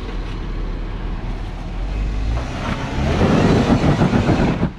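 Off-road vehicle's engine running low and steady, then revving hard from about two and a half seconds in as it tries to climb a rock obstacle. The revving cuts off abruptly near the end.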